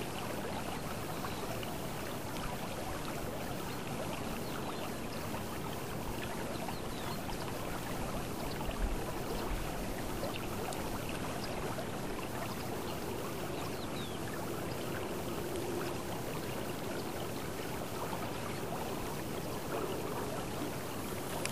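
River water flowing steadily along a pebble bank, a continuous even wash of water noise.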